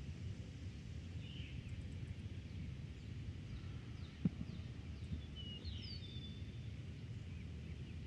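Summer field ambience: a steady low rumble of wind through grass and trees, with a few short, faint bird chirps, and a single brief tap about halfway through.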